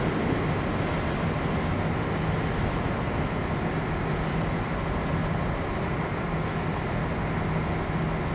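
Long freight train of open wagons rolling along the track: a steady rumble of wheels on rail with a low hum underneath.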